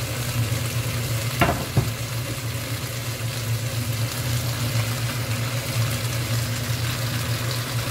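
Chicken, sweet potato, cabbage and onion sizzling as they are stir-fried in a wok over high heat, with two sharp knocks of the stirring utensil against the wok about a second and a half in. A steady low hum runs underneath.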